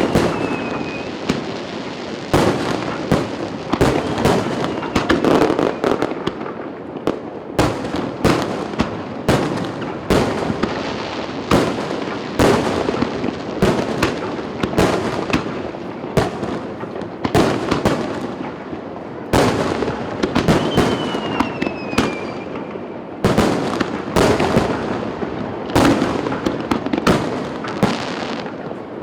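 Aerial fireworks display: a dense barrage of shell bursts, one after another, over continuous crackling, with a few short falling whistles.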